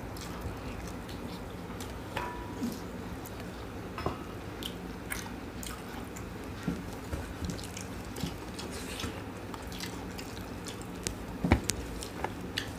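People eating biryani by hand from stainless steel plates: scattered soft clicks and scrapes of fingers on the plates and chewing, over a steady low hum. A sharper click near the end.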